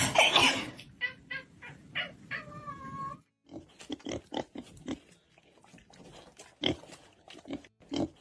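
An animal's vocal sounds: short pitched calls, then one longer drawn-out call about two and a half seconds in, followed by a run of short, quick sounds several to the second.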